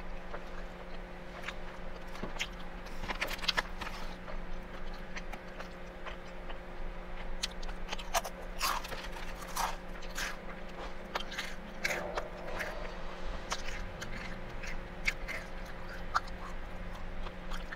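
Close-miked chewing of a bite of chicken burger patty: irregular small wet clicks and smacks of the mouth throughout, over a steady low hum.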